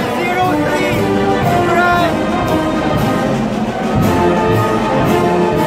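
Orchestral music with brass instruments playing held, slow-moving notes.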